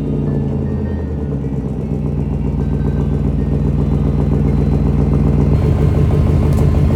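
BMW E39's engine idling, freshly started, with a steady exhaust note; the note changes about five and a half seconds in.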